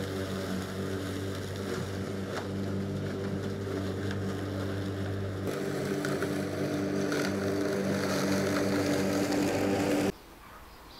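Walk-behind rotary lawn mower running steadily as it cuts grass, with a steady motor hum. The sound cuts off suddenly about ten seconds in.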